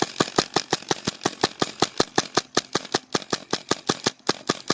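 Airsoft gun firing a long automatic burst, a fast even stream of sharp cracks at about seven shots a second.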